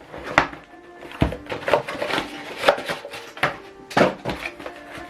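Product box and packaging being handled and opened: a series of sharp knocks and clicks with rustling between them.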